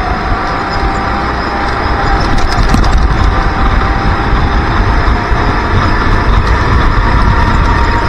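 Racing kart engine running hard from on board, its pitch climbing slowly as the kart accelerates out of a corner, with wind rumbling on the microphone. It gets louder about two seconds in.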